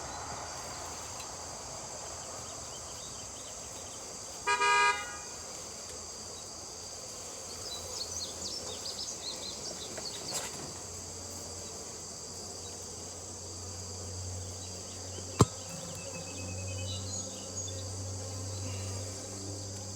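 Steady high chirring of insects, with a short horn-like toot about four and a half seconds in and a single sharp click near the end.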